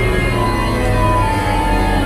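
Ominous music from the Western River Railroad's dinosaur scene: long held notes, a slow melody line drifting through them, over a low steady rumble.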